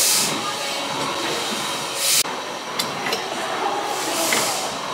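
Douglas & Grant single-cylinder Corliss steam engine running slowly, with a loud hiss about every two seconds and sharp metallic clicks between them.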